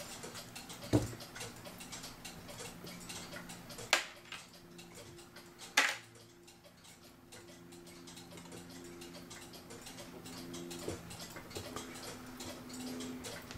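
Quick, steady ticking of a mechanical clock, with three louder sharp clicks from handling the clock's hands and dial.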